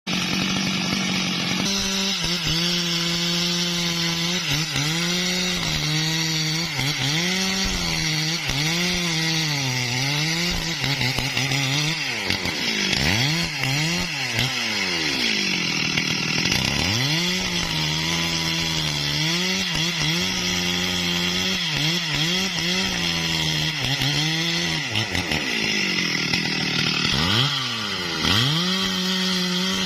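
Stihl two-stroke chainsaw cutting through large timber, its engine note sagging under load and picking back up again and again, with a few deep drops in revs in the middle and near the end.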